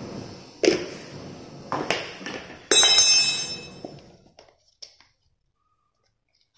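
A steel spoon knocking against metal kitchenware three times. The third knock is the loudest and leaves a ringing metallic tone that fades over a couple of seconds.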